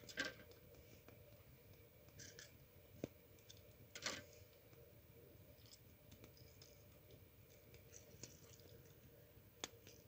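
Faint sharp clicks and scrapes of a small knife cutting a lemon by hand, the loudest near the start and about four seconds in, with smaller ticks between.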